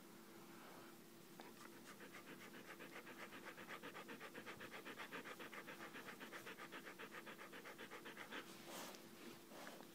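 Siberian husky panting quickly and evenly, close to the microphone, starting a second or two in and stopping near the end.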